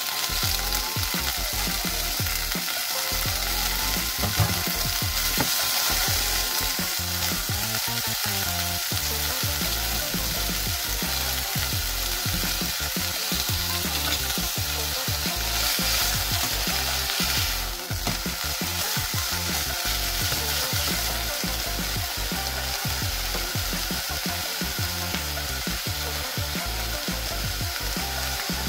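Broccolini frying in hot olive oil in a saucepan over medium heat: a steady sizzle.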